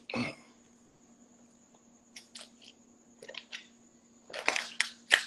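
A man drinking water from a plastic bottle: a few soft swallowing clicks, then louder breathy gulps and a sharp click near the end.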